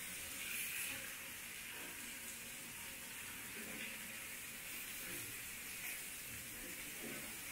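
Fish pieces frying in a shallow pan of hot oil: a steady, quiet sizzle.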